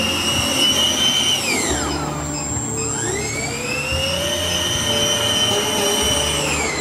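Remote-controlled toy car's electric motor whining at high pitch. The whine drops steeply as the car slows about a second and a half in, then climbs back as it speeds up again and holds steady.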